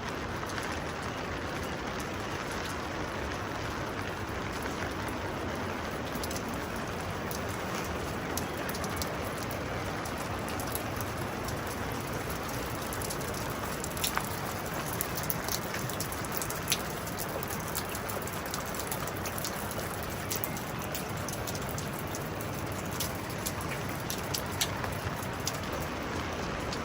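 Steady rain falling, with scattered sharp drips and taps of drops hitting hard surfaces, more of them in the second half.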